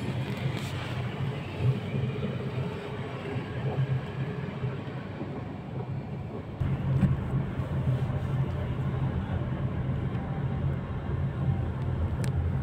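Steady low vehicle rumble of a car on the move, heard from inside the cabin. About six and a half seconds in the sound jumps louder into a steadier low hum.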